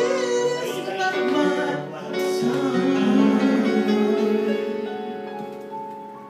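Man singing into a microphone over electronic keyboard chords, ending a song: the last sung line gives way after about two seconds to a held final keyboard chord that fades out.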